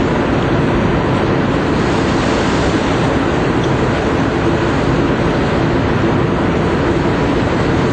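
Steady loud rushing noise with a faint, even hum underneath, unbroken throughout.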